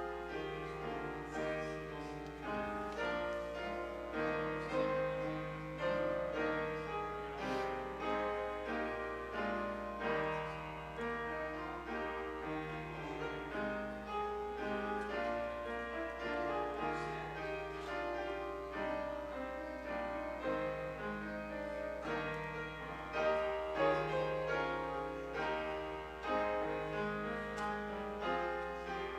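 Keyboard music, most like a piano, playing chords under a melody at an even pace, with a faint steady low hum beneath.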